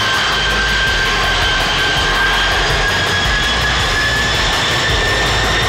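Airbus A300-600ST Beluga's twin General Electric CF6-80C2 turbofans running at high power as it gathers speed down the wet runway. Their whine rises slowly in pitch over a steady rushing roar.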